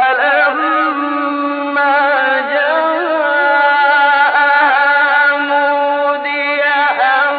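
A man's voice chanting Quran recitation in long, held, melodically ornamented notes, the pitch wavering and turning within each note.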